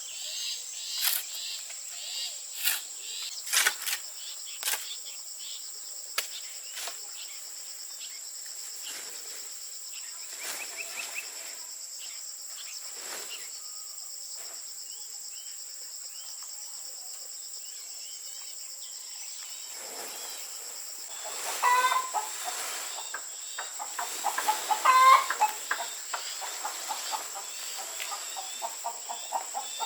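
Chickens clucking and calling, loudest about two-thirds of the way in and then in quick repeated clucks, over a steady high insect drone. A series of sharp knocks sounds in the first several seconds.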